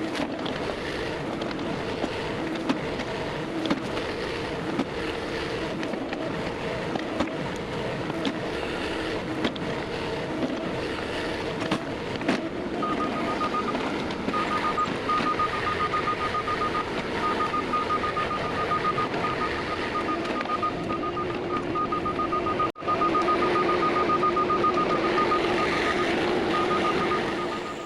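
Compact diesel tractor engine running steadily during backfilling. From about halfway a high, rapidly pulsing tone sounds over the engine, and the engine gets louder after a brief break near the end.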